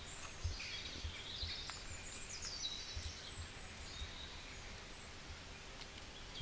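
Several small birds chirping and calling, with short high chirps, trills and gliding notes overlapping throughout. Scattered soft low thumps sit underneath.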